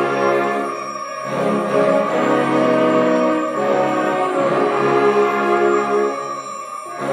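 A school concert band of wind, brass and percussion players performing a piece live, playing sustained chords. The sound dips briefly between phrases about a second in and again near the end.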